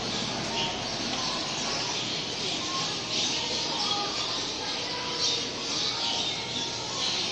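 Short, high bird chirps and squawks scattered over a steady background hiss.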